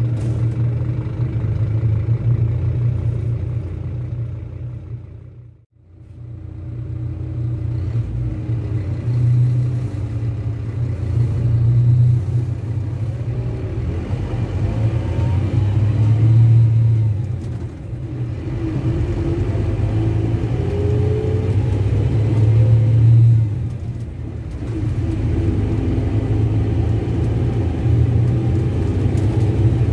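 Scania K310 bus's rear-mounted five-cylinder inline diesel running under load. The engine sound swells and dips several times as it pulls through the gears, with a rising whine in places. About six seconds in, the sound drops out briefly, then resumes.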